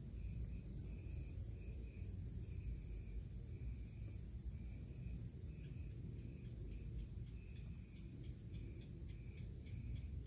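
Insects chirping: a high pulsing trill and a lower chirp repeated about every half second, over a low steady rumble.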